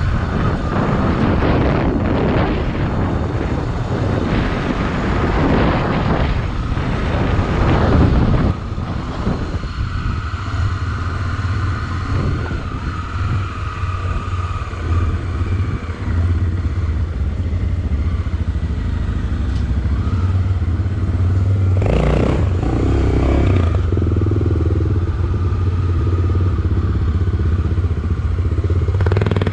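Motorcycle engine running steadily as the bike is ridden, with rough rattling noise over the first eight seconds or so and a brief burst of noise about three-quarters of the way through.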